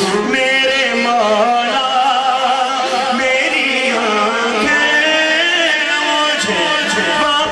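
A male voice singing a naat, an Islamic devotional song, in long held notes that waver and bend in pitch, heard through a loudspeaker system.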